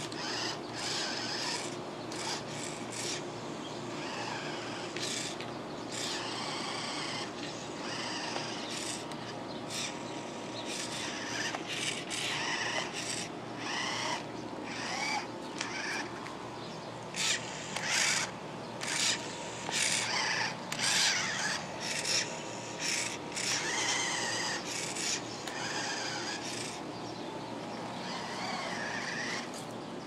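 Remote-control toy car's small electric motor whirring in many short throttle bursts, its pitch rising and falling, with its attached paintbrushes scraping over canvas. The bursts come thickest and loudest in the middle stretch.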